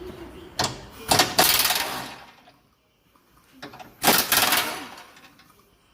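Metallic clattering and rattling of tools or parts being handled, in two loud bursts: one about a second in and one about four seconds in.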